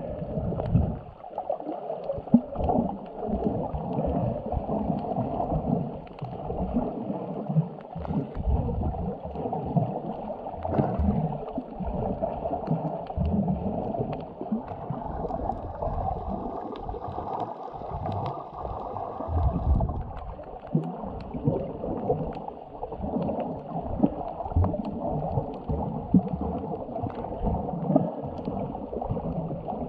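Muffled water sloshing and gurgling heard with the microphone under the surface, with irregular low thumps and knocks throughout.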